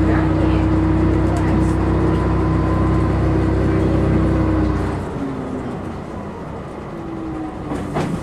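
Heard from inside a JR Shikoku 2000 series diesel railcar in motion: the diesel engine's steady drone under power, which drops away about five seconds in. Quieter rail running noise is left after that, and a single click comes near the end.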